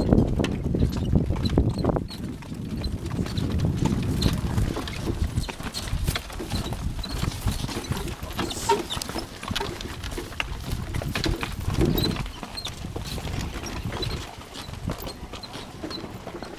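Horse's hooves clopping on a dirt road as it pulls a passenger cart, with a low rumble that is loudest in the first few seconds.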